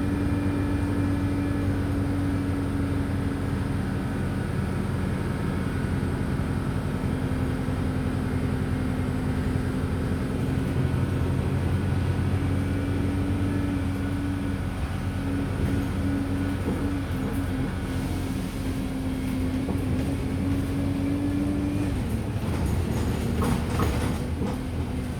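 Wright StreetLite DF single-deck bus under way, heard from inside the saloon: a steady engine and drivetrain drone with a held tone that drops away sharply near the end. Light rattles and clicks come in over the last few seconds.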